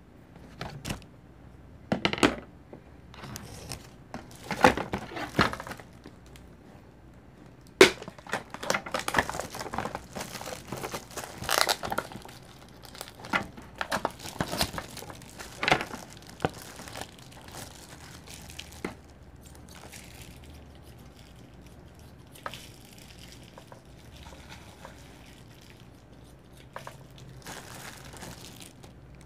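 Plastic food packaging and a disposable plastic glove crinkling and rustling as a tray of raw pork is opened and handled, with sharp clicks and snips from kitchen scissors. The handling noise is busy and irregular in the first half, then thins to scattered clicks.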